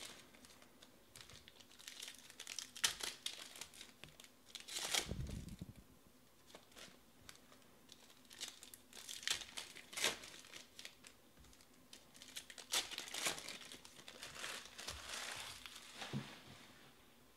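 Foil trading-card pack wrappers being torn open and crinkled by hand, in irregular bursts, with a dull thump about five seconds in.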